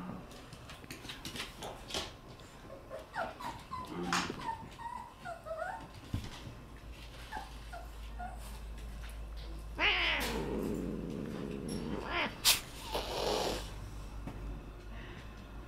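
Cats squabbling on a blanket: short, high little mews, then one long cry that falls steeply in pitch and a shorter cry soon after, the warning sound of an annoyed cat fending off a kitten and a dog. Blanket rustling and light taps run underneath.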